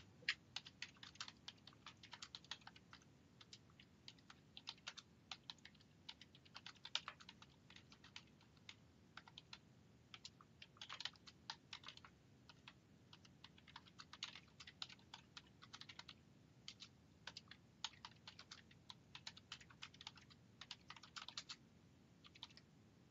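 Typing on a computer keyboard: a quiet, uneven run of keystroke clicks with short pauses between bursts.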